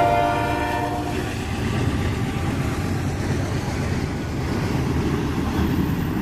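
Diesel locomotive air horn chord trailing off about a second in, then the steady low rumble and rail noise of loaded coal cars rolling past.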